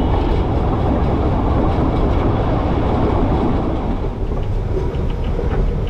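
Darjeeling Himalayan Railway narrow-gauge train running, heard at an open carriage window: a loud, steady rumble of wheels on the track with rushing air, starting abruptly.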